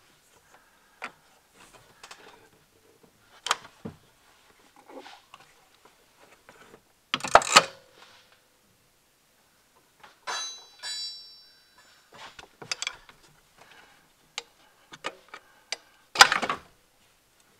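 Hand-tool work on a 2006 Kia Sportage's serpentine belt and tensioner: scattered clicks and knocks of metal tools and parts. There is a louder clatter about seven seconds in and again near the end, and a brief high squeak about ten seconds in.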